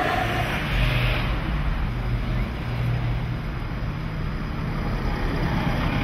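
Road traffic: a steady low rumble of passing vehicles with a hiss over it.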